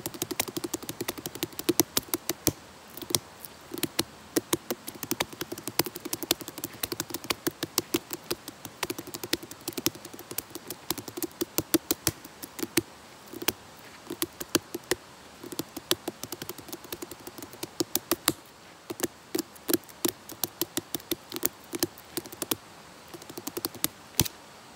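A whole fresh wax gourd (winter melon) struck with the hand like a hand drum: fast rhythmic patterns of sharp taps, each with a short low ring, broken by brief pauses a few times.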